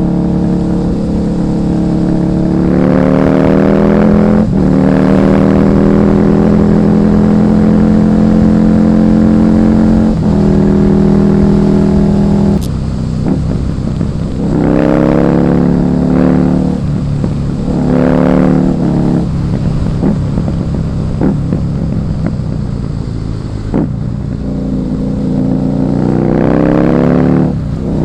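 Husqvarna Nuda 900R's parallel-twin engine pulling hard through the gears. Its pitch climbs steadily and drops sharply at each upshift, about four seconds in, ten seconds in and near thirteen seconds in. After that comes a run of short throttle bursts, each revving up and falling back, with a lower-revving lull before a final climb near the end.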